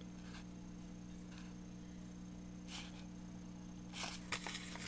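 A paper leaflet rustling briefly a couple of times as it is handled, over a steady low electrical hum.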